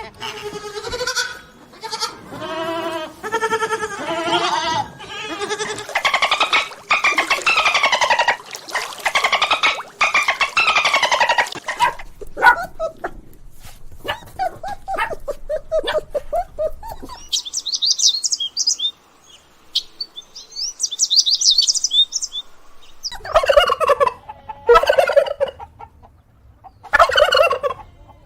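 Poultry calling: about twelve seconds of loud, repeated, dense calls, then rapid high chirping, then short bursts of calls near the end.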